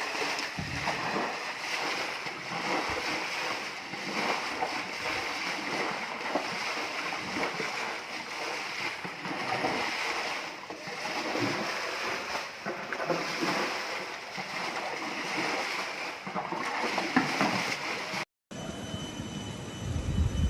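Splashing, rushing water in a heavy rainstorm: a dense, noisy hiss with many small irregular splashes. Near the end it cuts to a different recording carrying two steady high-pitched tones.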